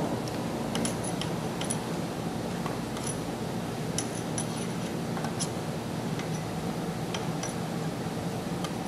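Steel open-end wrenches clinking against a nut and bolt while a threaded linkage part is held and unscrewed: scattered sharp metallic clicks, each with a short high ring, over a steady low hum.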